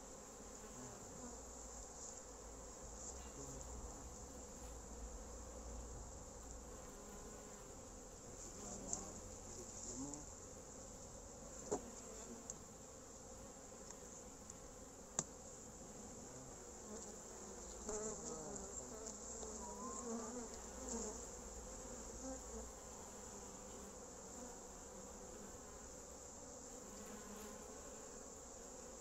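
Honeybees buzzing steadily around an opened wooden hive, with individual bees flying close by. A few sharp knocks from the hive being handled cut through, the loudest about 15 seconds in.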